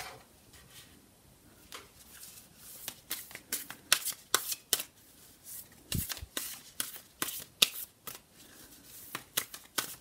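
A deck of tarot cards being shuffled by hand, the cards snapping and slapping against each other in quick, irregular clicks from about two seconds in. A single dull knock, the loudest sound, comes about six seconds in.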